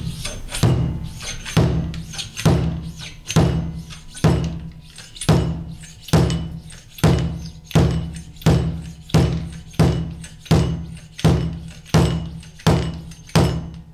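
A Motion Pro fork seal driver being slid up and knocked down, over and over, driving a new oil seal into a Harley-Davidson 39 mm fork slider. The knocks come steadily, about one a second, each sharp with a short ring.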